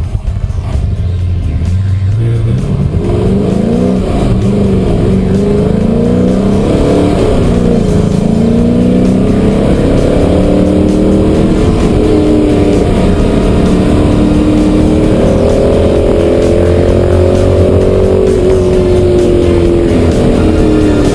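Ultima GTR's V8 engine heard from inside the cockpit, accelerating hard from about two seconds in: the pitch climbs and then drops back at each upshift, over and over.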